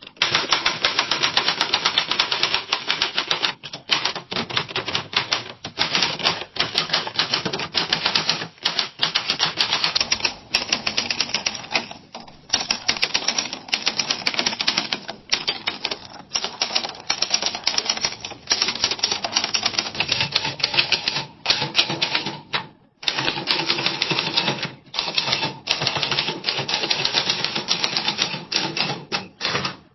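Typewriter keys struck in fast, continuous runs: a dense stream of sharp clacks with brief pauses every few seconds.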